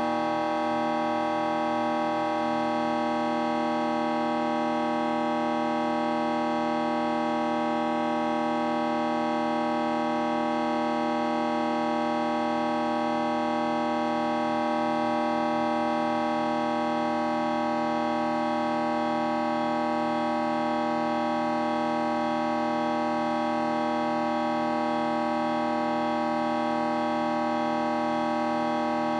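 A steady, dense electronic drone from a vocoder effect: many stacked tones held without a break, with small shifts in the texture about two seconds in and again around the middle.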